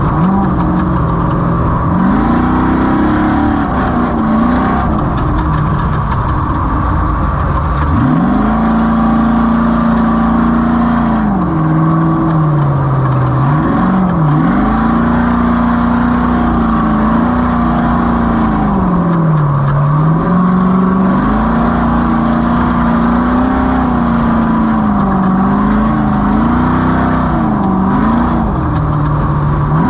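Off-road race vehicle's engine revving up and down over and over as the throttle comes on and off, its pitch climbing and dropping every two to three seconds.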